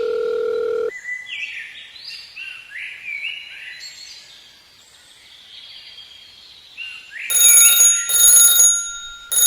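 A steady electronic buzzing tone that stops about a second in. Then a run of rising chirping whistles. From about seven seconds, a loud alarm-like ringing in repeated bursts, each about half a second long.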